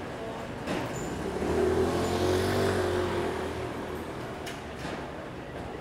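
A road vehicle's engine passing close by in a city street, swelling to its loudest around two seconds in and then fading, over steady street noise.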